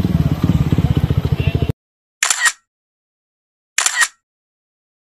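Motorcycle engine running with a fast, even low throb, cut off abruptly about a second and a half in. Two short swishing sound effects follow in silence.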